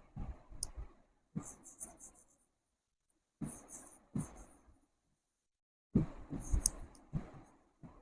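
Writing on a board, fairly faint: scratchy strokes and taps in four short bursts with silent pauses between them.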